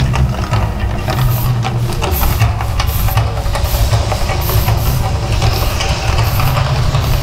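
The Mirage's man-made volcano show erupting: a loud, deep, continuous rumble with hissing from its gas flames and water jets.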